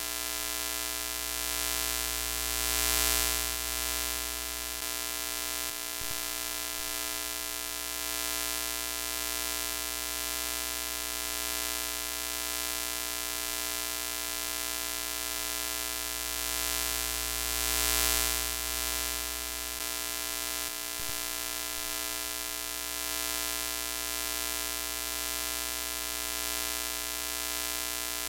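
Broken-TV glitch sound effect: a steady electrical hum with many overtones under a haze of static hiss. It swells louder twice, about 3 and 18 seconds in, with brief dropouts a few seconds after each, as the effect loops.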